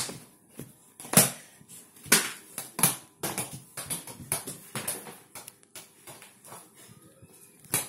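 A basketball bouncing on a floor: a string of irregular thuds, the loudest in the first three seconds, fainter ones after.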